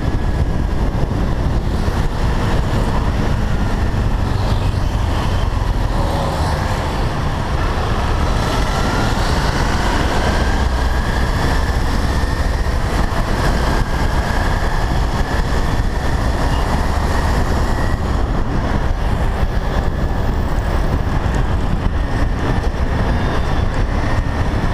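Motorcycle riding through dense night traffic, heard from the bike: a steady rumble of engine and road noise with other vehicles around, and a faint engine note that slowly rises and falls in pitch.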